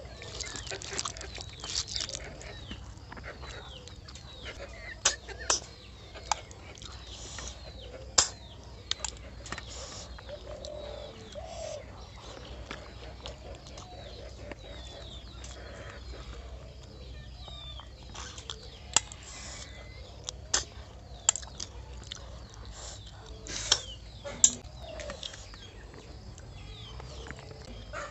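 Close-up eating sounds: short, sharp sucking slurps and lip smacks, scattered irregularly, as cooked snails are sucked from their shells and eaten with rice. Chickens cluck in the background.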